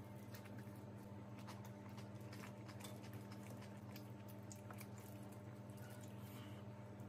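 Faint eating sounds: fingers squishing biryani rice and curry together on a steel plate, along with chewing, as scattered small clicks and smacks over a steady low hum.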